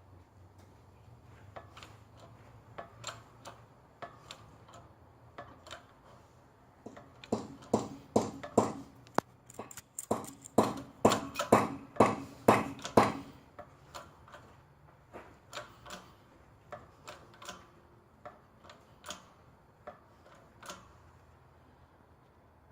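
Irregular sharp clicks and pops from a shop press driving a carrier bearing down onto an 8.5-inch rear-axle differential carrier, with a run of louder pops in the middle.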